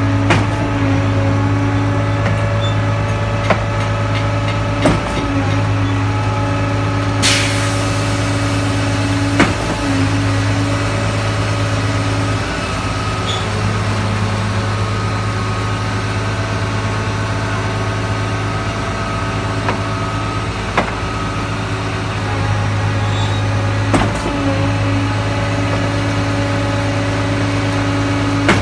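Heavy diesel engine of a concrete pump and mixer truck running steadily with a low hum. Occasional sharp knocks and a short hiss about seven seconds in.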